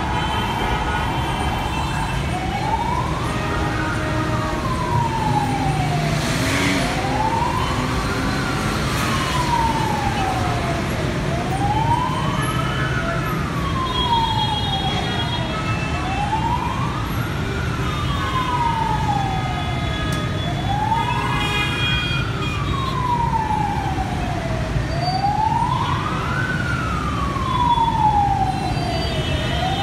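Emergency vehicle siren wailing from the road below, each cycle a quicker rise and a slower fall in pitch, repeating about every four and a half seconds from about two seconds in, over steady road traffic noise.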